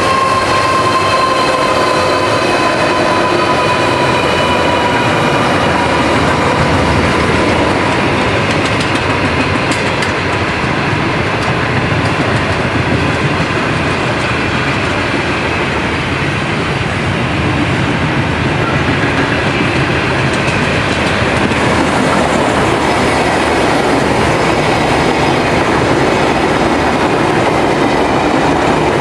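A long container freight train passing close by, its wagons rumbling and clattering over the rail joints, with thin high wheel-squeal tones over the first few seconds that fade away. In the last ten seconds or so a VLocity diesel railcar set passes.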